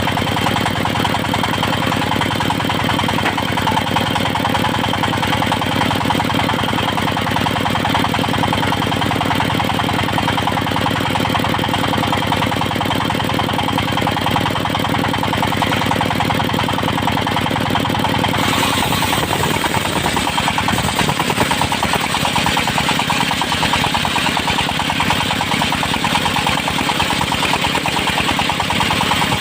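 Engine-driven circular sawmill running steadily. About two-thirds of the way in the sound changes: the low engine tone breaks up and a loud hiss comes in, as the blade rips through teak.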